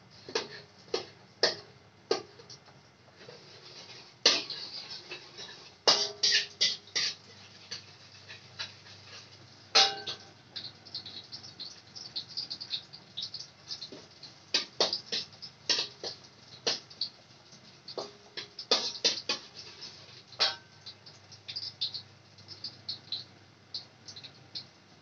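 A pot of water at a rolling boil on a gas stove: bubbles bursting in irregular sharp pops and short plops, some in quick clusters, over a faint steady low hum.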